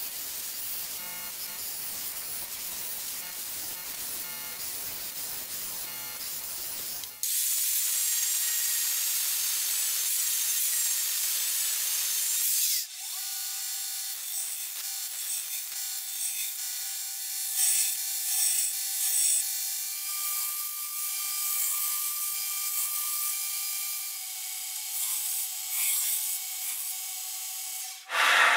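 Belt grinder running with a steel knife blade held against the abrasive belt: a harsh, hissing grind. It comes in three takes that change abruptly, the middle one loudest and brightest. In the last take, steady tones run under the hiss.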